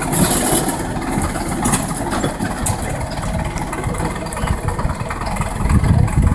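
Small narrow-gauge locomotive's engine running steadily as the locomotive moves off along the track; the low rumble grows louder near the end.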